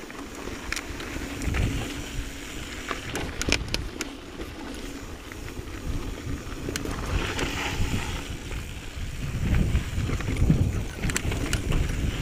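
Mountain bike rolling along a dirt singletrack, with wind buffeting the microphone as a gusty low rumble, and sharp clicks and rattles from the bike over the rough trail, a cluster about three seconds in and again near the end.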